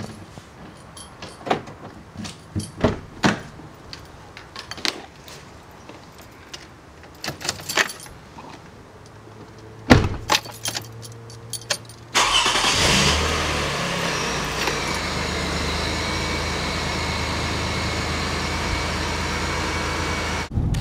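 Scattered clicks and knocks of someone moving about inside a car, then about twelve seconds in the car's engine starts and runs steadily, heard from inside the cabin.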